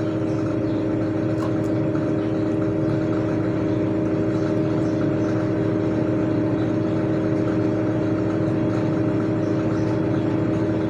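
A steady mechanical hum, a motor running at a constant pitch with no change.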